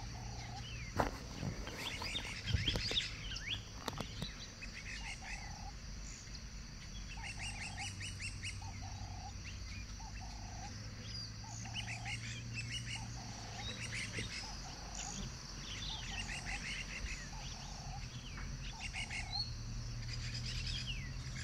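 Savannah birdsong: many short chirping calls, with a short flat call repeated about once a second and a low steady hum underneath.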